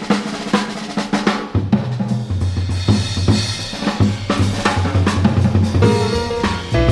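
Jazz drum kit played busily and loudly, with rapid snare, bass drum, rimshot and cymbal strokes in a live piano trio; pitched piano tones come in near the end.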